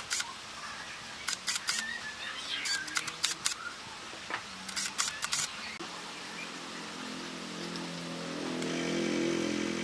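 Sharp metallic clicks and taps as a power driver works against a small electric fan motor's aluminium housing. From about six seconds in, a steady electric hum builds and swells toward the end.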